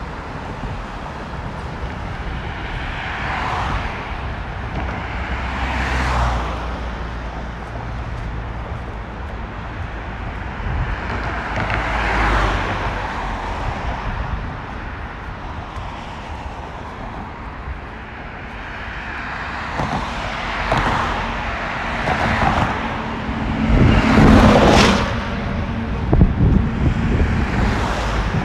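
Road traffic on a multi-lane road: cars passing close by one after another, their tyre and engine noise swelling and fading, with passes coming more often in the second half and the loudest near the end.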